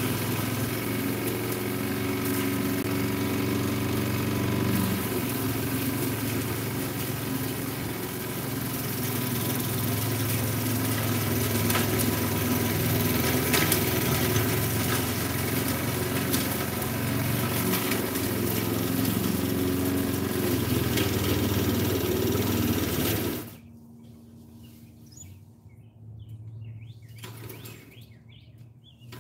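Small petrol lawn mower engine running steadily, its pitch shifting slightly about five seconds in, then cutting out abruptly near the end.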